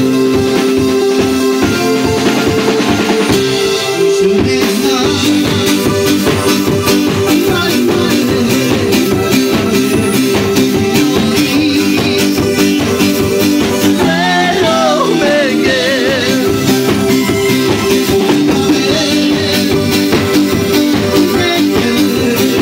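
A small live band playing with a steady beat: keyboard, electric bass, acoustic guitar and drum kit together.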